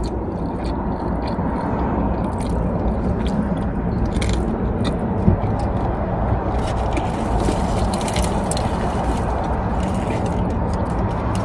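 Close-up biting and chewing of a bagel sandwich, with scattered short mouth clicks over a steady low background hum, and one sharper tap about five seconds in.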